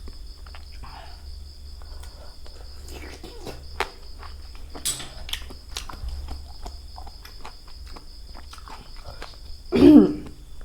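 Crickets chirping steadily in the background, with scattered clicks, crunches and slurps of people eating seafood. A short, loud pitched sound, like a voice or a hard slurp, comes near the end.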